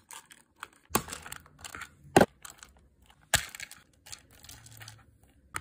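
Polymer clay disc beads clicking and rattling as a cut strand is pulled off its string into a plastic organizer compartment: irregular sharp clicks, the loudest about one, two and three and a half seconds in.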